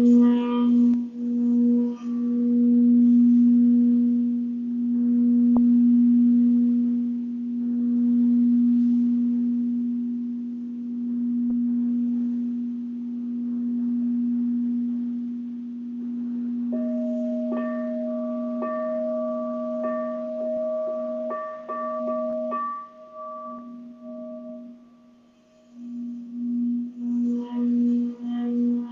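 Singing bowl ringing with a steady low hum that swells and fades slowly. About two-thirds of the way in, a second, higher ringing tone joins for several seconds. Near the end the low hum pulses quickly.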